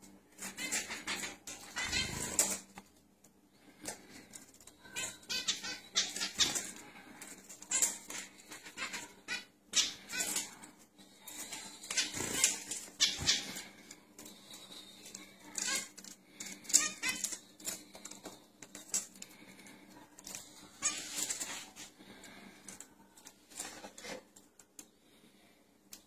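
Caged zebra finches calling, short high calls repeated irregularly and often, mixed with wing flutters and light clicks. A faint steady hum lies underneath.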